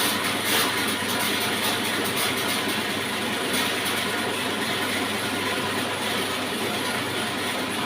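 Horizontal saw machine running with a steady, even mechanical noise.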